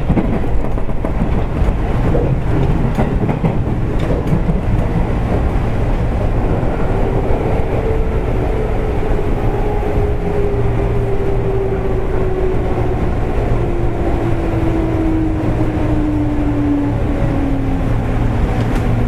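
JR East 205 series electric train running, heard from inside the car at its end: a steady rumble of wheels on rail, with a few rail-joint clicks in the first seconds. About seven seconds in, a motor whine comes in and slowly falls in pitch as the train slows.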